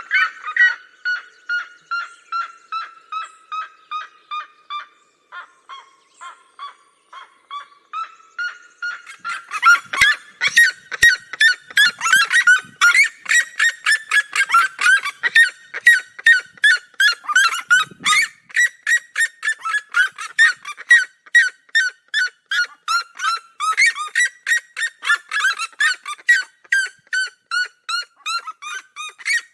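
Red-legged seriemas calling in duet: a long, rapid series of short loud notes. The first series slowly drops in pitch and thins out, then from about nine seconds in a denser, louder run of overlapping notes takes over as the pair call together.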